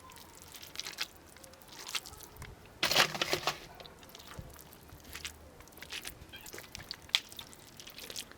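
Someone eating crisp food, biting and chewing with scattered short crunches and a louder crunching bite about three seconds in.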